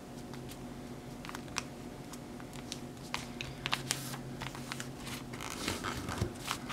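A sheet of paper being folded and creased by hand: soft rustling and scattered crisp crackles of the paper, over a faint steady hum.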